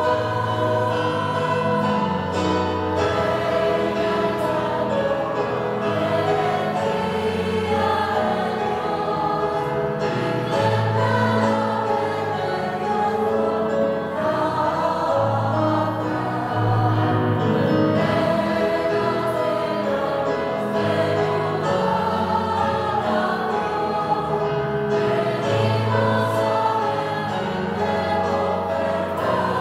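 Mixed choir of women's and men's voices singing a sacred piece in held chords, accompanied by a keyboard.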